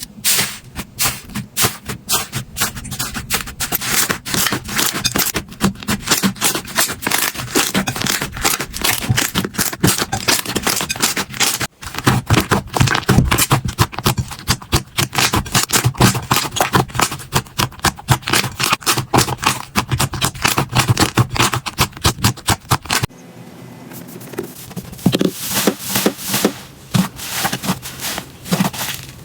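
Slime being squeezed, pressed and poked by hand, giving dense rapid crackling and popping clicks. It breaks off and restarts about 12 seconds in, and goes briefly quieter and softer after about 23 seconds.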